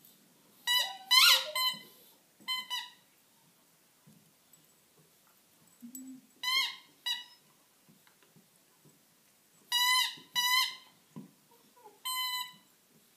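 Squeaky dog toy squeezed in short, high-pitched squeaks, mostly in pairs, in five rounds a few seconds apart.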